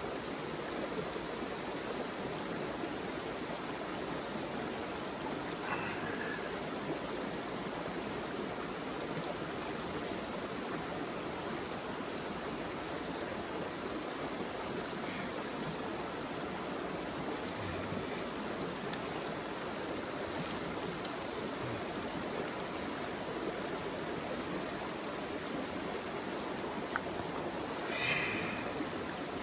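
River water flowing, a steady rushing with no break, and a brief higher-pitched sound near the end.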